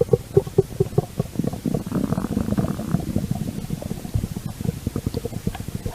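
Stomach growling: a continuous run of rapid, irregular gurgles, thickening into a denser, lower rumble partway through.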